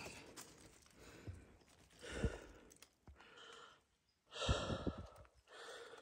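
A person breathing out heavily: two sighing exhales, a softer one about two seconds in and a louder one about four and a half seconds in.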